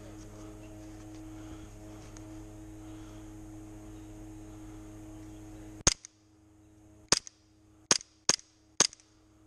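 Airsoft gun firing five single shots, sharp snapping cracks spaced unevenly over about three seconds, the first about six seconds in. Before the first shot a steady low hum.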